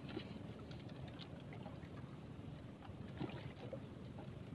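Steady sea and wind noise around a small outrigger boat, with a few faint clicks and taps as baited hooks of a longline are paid out from their tray.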